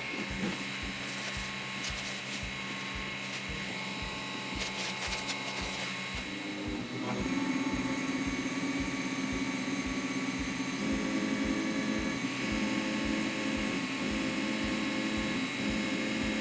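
Athorbot Buddy Couple 3D printer running a print: steady fan whine with stepper-motor tones that change pitch as the head moves, shifting about halfway through.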